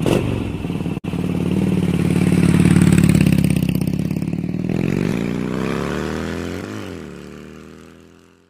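A motor vehicle engine, running steadily and then revving up in pitch from about five seconds in, with a brief dip near the seven-second mark, before fading away. It cuts out for an instant about one second in.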